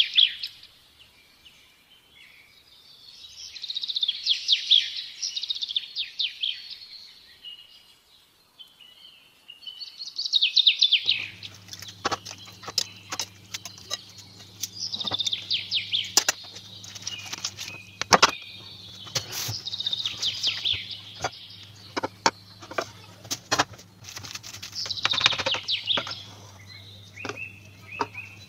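A songbird singing in bouts of rapid high chirps and trills. From about eleven seconds in, a steady low hum runs under it, with scattered clicks and knocks of kitchen utensils as soaked bread is lifted with tongs into a plastic colander.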